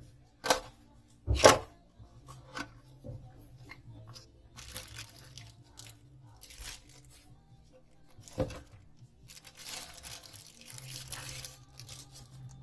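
Product packaging being handled and opened: two sharp snaps near the start, then bursts of tearing and rustling, the longest near the end.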